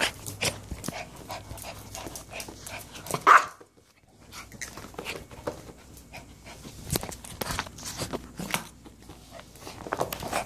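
A toy poodle and a Yorkshire terrier excitedly greeting, panting with short barks and yelps, among many quick scuffles and clicks; the loudest call comes about three seconds in, followed by a moment of quiet.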